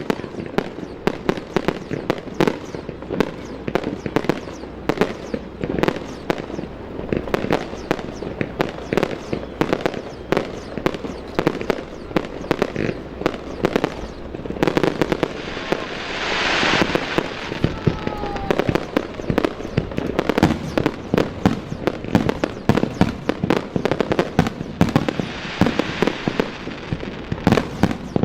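Aerial fireworks display: shell bursts going off in a rapid, near-continuous string of bangs, several a second. There is a swelling stretch of hiss about halfway through and a shorter one near the end.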